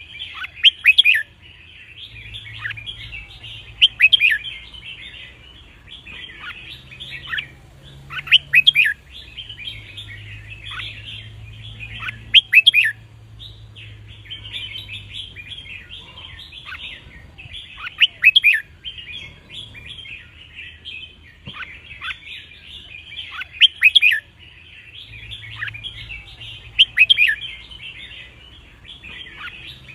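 Red-whiskered bulbuls singing: loud, sharp song phrases about every four to five seconds over continuous twittering.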